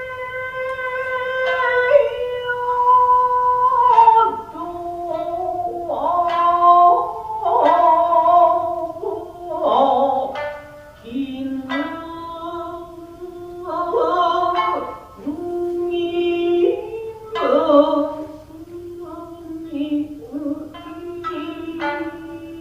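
Japanese traditional dance music: a singer holds long, wavering notes over sharply plucked shamisen notes.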